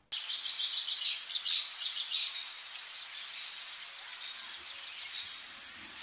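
Rainforest ambience of birds and insects: a fast run of short high chirps, about six a second, fading out after about two seconds over a steady high insect hiss. Near the end a loud high-pitched insect buzz holds for under a second.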